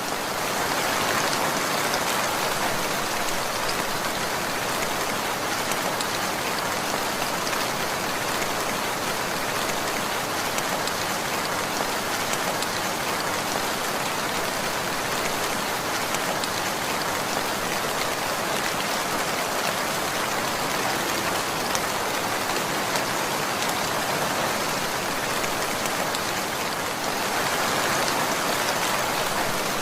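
Steady rainfall pattering on a surface, a dense even hiss of many drops.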